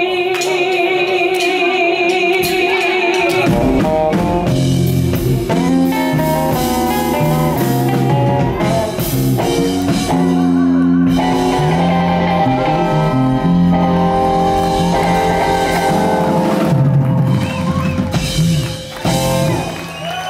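Live blues band: a female singer holds one long note with vibrato, then drums, electric bass and guitar come in together with her for the closing bars of the song, breaking off a little before the end.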